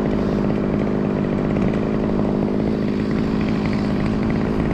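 Chainsaw running steadily, an even motor whine with no breaks.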